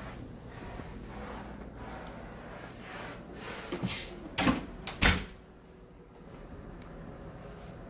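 A door being opened and shut: a few clicks and knocks about halfway through, ending in a louder latch clunk, over a steady room hum.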